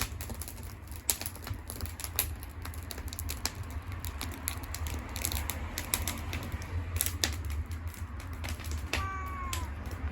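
Wood campfire crackling, with irregular sharp pops and snaps over a low steady rumble, and a short falling cry near the end.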